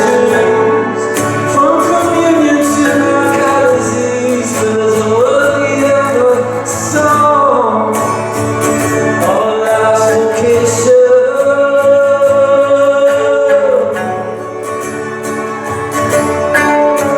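Live band playing an instrumental break between verses of a song, with a lead melody sliding between notes over drums and a steady accompaniment.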